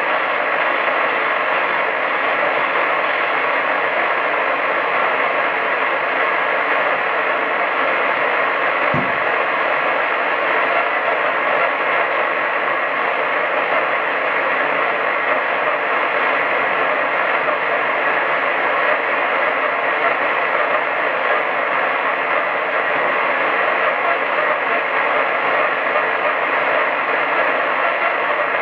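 Medium-wave AM radio receiver hiss: a steady band of static with faint steady whistles in it and no programme audible. A single brief low thump comes about nine seconds in.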